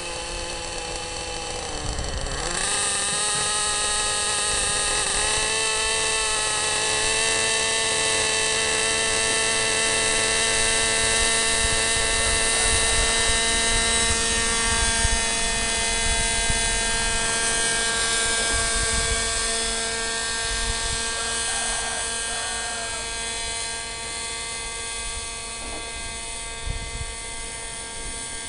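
Radio-controlled model helicopter running: a steady high whine of its motor and drive gears with the rotor. The pitch dips and then climbs, and it gets louder, about two seconds in, then holds steady.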